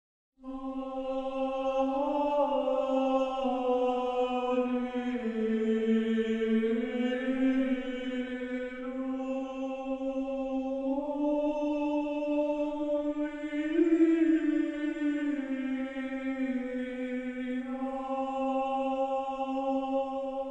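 Orthodox church chant: a slow melody sung in long, held notes that glide gently up and down, starting about half a second in.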